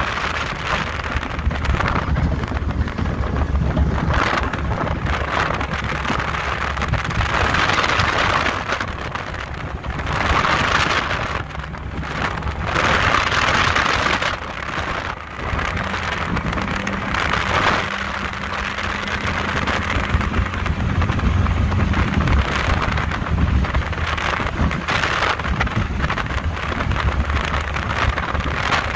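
Powerboat running at high speed, around 70 mph: the engine's steady low drone under a heavy rush of wind and water hiss that swells and eases.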